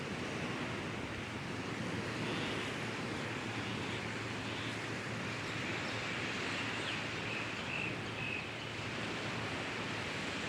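Steady wash of sea surf, even and unbroken, with a few faint short high chirps about seven to eight seconds in.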